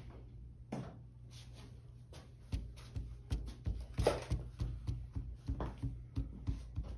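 White school-glue squeeze bottle dotting glue onto paper on a table: a quick run of short soft taps, several a second, as the nozzle touches down dot after dot, starting about two and a half seconds in. A faint low hum runs underneath.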